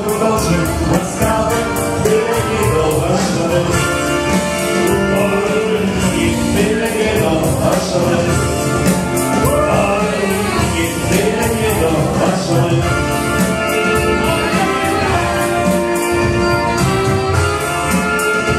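Wedding dance band playing an upbeat song with a steady beat and a singer's voice over the instruments.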